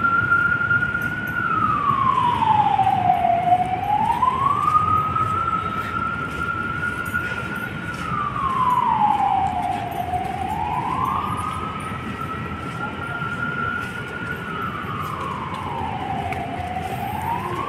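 A siren wailing slowly: a single tone holds high, sweeps down and climbs back up, about every six and a half seconds, nearly three times, over steady background noise.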